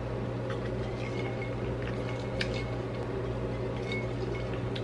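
Quiet room tone: a steady low hum, with a few faint soft clicks spaced a couple of seconds apart.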